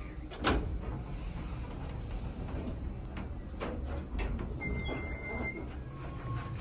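Otis elevator: a knock about half a second in as the sliding doors close, then the car's steady low rumble. About four and a half seconds in, a steady electronic tone sounds for about a second.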